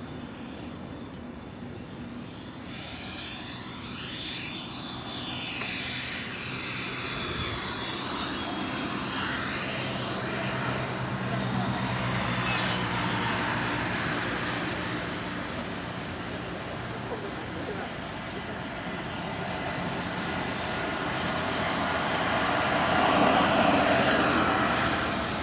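Feibao Mirage 2000 model jet's small turbine whining as the jet lands and rolls out on the runway. The high whine sags slightly in pitch, then climbs steadily over the last several seconds as the turbine spools up, with the rush of the exhaust growing louder.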